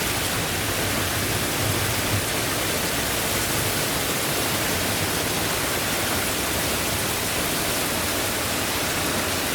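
Heavy tropical-storm rain pouring down as a steady, even rush of noise.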